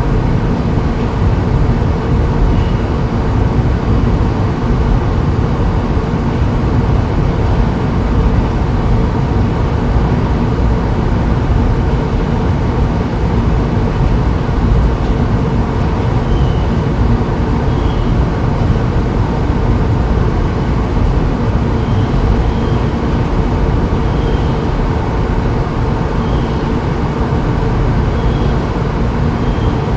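Steady, loud vehicle running noise: a continuous rumble and hiss with a low hum, and faint short high chirps every few seconds.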